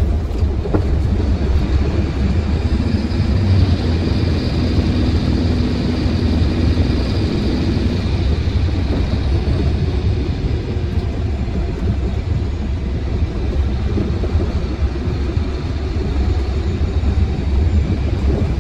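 Truck's diesel engine and tyre noise heard from inside the cab while driving, a steady low rumble. A faint whine comes in about three seconds in and fades out by about eight seconds.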